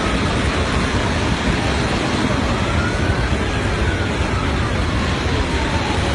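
Floodwater rushing over a bridge: a loud, steady rush of noise with a deep rumble underneath.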